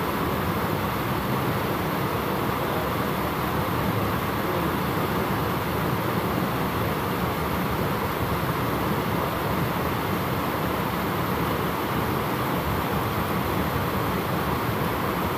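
Steady rush of water pouring over a small stone weir into a stream, an even, unbroken noise.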